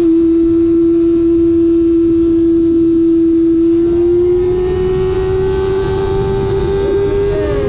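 Kawasaki ZX-25R inline-four through an SC Project exhaust, running at high revs under way. Its note holds steady, then climbs slowly over the last few seconds.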